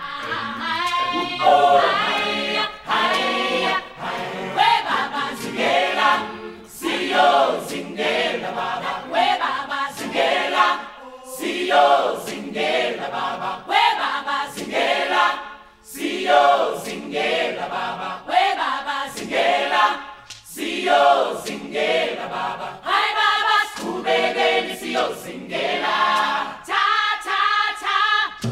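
Music: a choir singing in short, rhythmic phrases, many voices together with little bass underneath.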